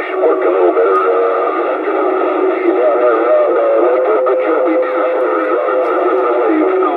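CB radio channel audio, thin and narrow-band, carrying wavering music-like tones and singing over the channel, with a few held notes near the end.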